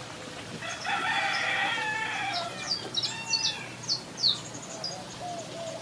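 A rooster crowing once, a call of about two seconds with a falling end, followed by a run of short, high chirps from smaller birds.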